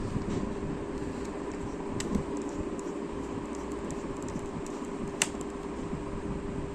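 Steady hum with two sharp clicks, about two seconds and about five seconds in, from a laptop's small plastic and metal parts being handled while its bottom cover is screwed down.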